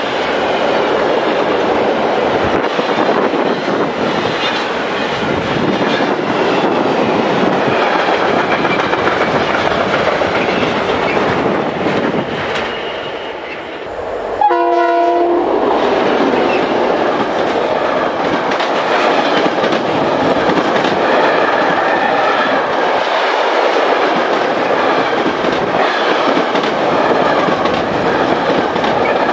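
Freight train of car-carrier wagons rolling past close by, with wheels clicking over the rail joints. About halfway through, a Slovenian Railways class 664 diesel locomotive sounds one horn blast about a second long. Then a train of covered freight wagons rolls past with the same clickety-clack.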